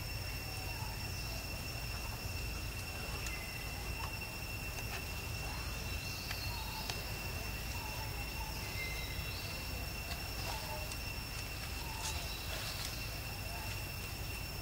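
Steady high-pitched insect drone, one unbroken tone held throughout, over a low outdoor rumble, with scattered faint short chirps and clicks.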